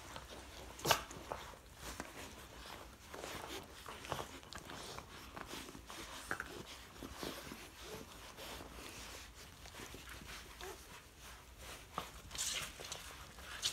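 Puppies mouthing and chewing on a hand and sleeve, with scattered small chewing and rustling sounds. There is a sharp knock about a second in and a louder rustle near the end.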